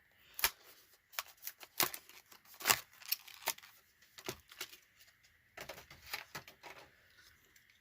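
Plastic blister packaging of a diecast car being cut and pulled open: irregular sharp clicks, snips and crackles of stiff plastic and card.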